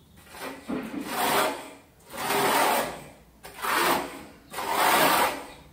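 Notched Kerdi trowel scraping modified thinset mortar across the shower base and wall in four long strokes of about a second each.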